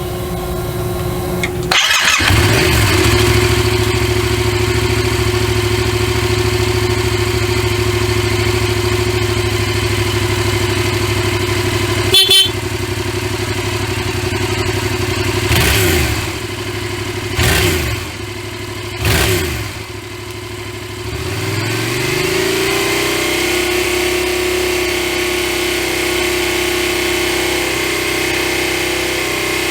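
Yamaha MT-07's 688 cc four-stroke parallel twin starting about two seconds in and idling steadily during a running check. A short sharp sound comes near the middle, then three quick throttle blips, each rising and falling. After that the revs rise smoothly and hold steady.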